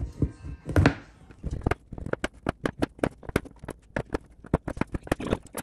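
A knife chopping a bar of dark chocolate into shavings on a cutting board: quick, regular crisp strokes, about five a second, after a heavier knock just under a second in.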